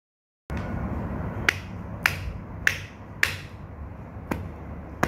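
A hand knocking on ceramic tile: six sharp taps, about one every 0.6 s, the fourth and fifth weaker, over a steady low background noise. The taps start after half a second of dead silence.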